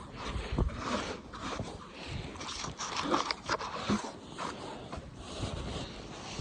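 A dog snuffling and panting in short, irregular bursts.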